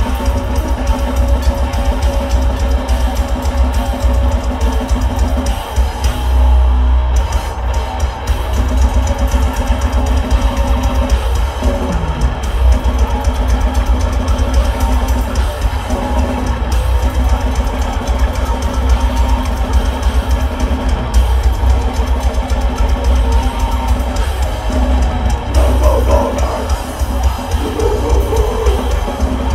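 A death metal band playing live and loud: heavily distorted electric guitars, bass guitar and a pounding drum kit in a dense, continuous wall of sound.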